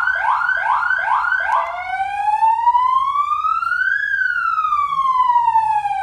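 Tech One electronic police siren sounding through the car's siren speaker, starting as a fast yelp of about three rising sweeps a second. About one and a half seconds in it changes to a slow wail that rises for a couple of seconds and then falls.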